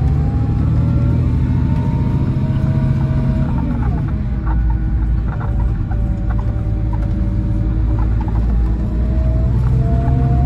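Scania K440EB6 coach running on the road, heard from inside: a steady low diesel rumble from its 13-litre straight-six, with a whining tone that drifts in pitch, dropping about four seconds in and climbing again near the end, and a few light rattles in the middle.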